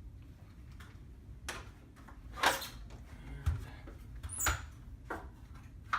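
A series of about six sharp clicks and knocks from handling the plastic housing and screws of a wireless motion detector being readied for wall mounting; the loudest knock comes about two and a half seconds in.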